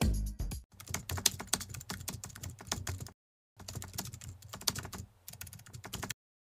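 Last half-second of an upbeat music jingle, then a rapid clatter of computer keyboard typing, a typing sound effect, in two runs with a short silent pause about three seconds in.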